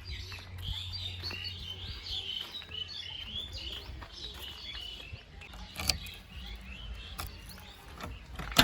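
Many small birds chirping and twittering over a low steady rumble, with two sharp knocks, the second near the end.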